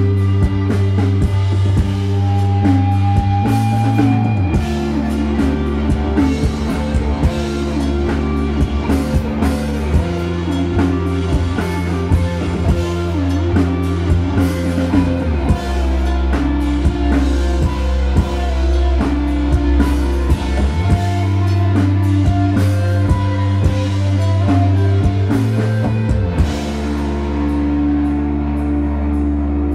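Live psychedelic rock band playing: electric guitar, bass guitar and drum kit together, with long held bass notes that change every five or six seconds under steady drum hits.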